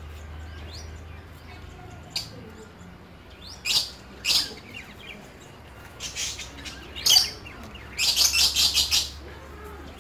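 Small birds chirping in short, high calls, with a quick run of about eight chirps around eight seconds in. A low steady hum runs underneath.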